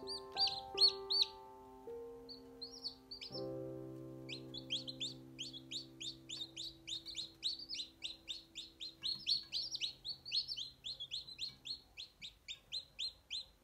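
Newly hatched chicks peeping, short high falling peeps at about four a second, over background music of held keyboard notes that fade out near the end.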